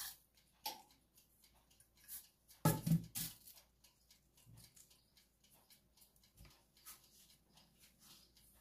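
A metal bowl of seeds handled and set down on the worktop, with a short cluster of knocks about three seconds in, amid faint light clicks.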